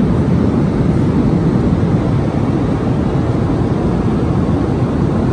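Airliner cabin noise: the loud, steady, deep rush of jet engines and airflow heard from a window seat.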